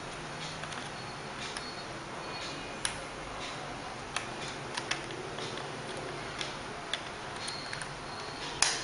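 Irregular small plastic clicks and taps as ribbon-cable connectors inside an Acer laptop are unclipped by hand and tool, over a steady hiss, with a louder click near the end.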